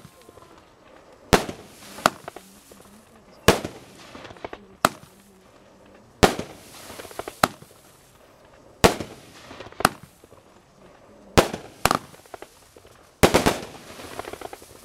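Panda Feuerwerk 'Phosphor' aerial firework firing shot after shot of large bouquet bursts: about eleven sharp bangs, roughly one every second or two and some in quick pairs, several followed by a short trailing wash of noise.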